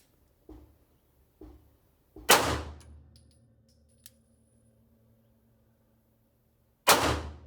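Two gunshots from a Beretta 92/M9 9mm pistol, about four and a half seconds apart, each a sharp crack with a short echoing tail.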